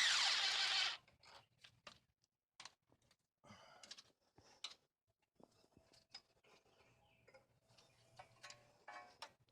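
A loud burst of hissing noise lasting about a second, then scattered light clicks and taps.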